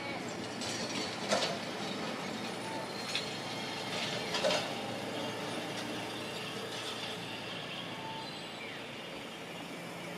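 Toyama Chitetsu 'Santram' low-floor tram rolling slowly along street track: steady running noise with a few sharp clicks, about a second and a half in, at three seconds and around four to four and a half seconds.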